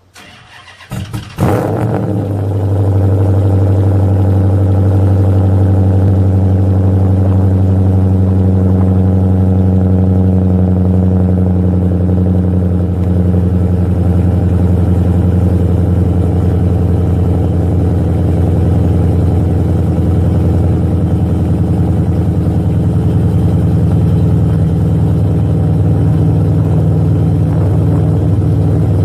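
Stroked 3.3-litre Vulcan V6 with a performance camshaft, heard through an aftermarket exhaust with a Jones Flow Pack muffler and open chrome tips, being cold-started. The starter cranks briefly, the engine catches about a second and a half in, then it settles into a steady, deep cold-start idle.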